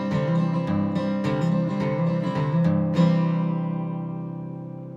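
Acoustic guitar strumming the closing chords of a country song, the last chord struck about three seconds in and left to ring out and fade.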